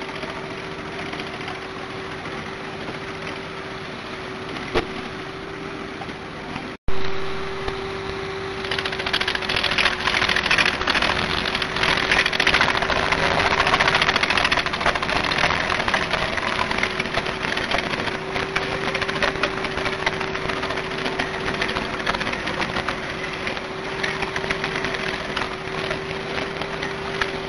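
Starchl MK 86 drum wood chipper running with a steady hum. About a third of the way in, wood starts going through the drum, and a dense crackle of chipping rides over the hum.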